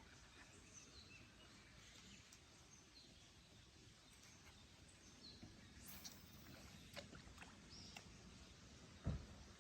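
Quiet outdoor ambience with faint, scattered bird chirps and a few light clicks, then one dull low thump near the end.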